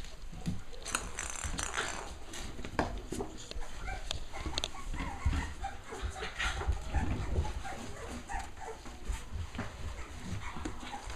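Cavalier King Charles Spaniel puppies playing: irregular scuffling, bumps and knocks as they push a plastic ball around a hard floor, with short puppy vocalisations mixed in.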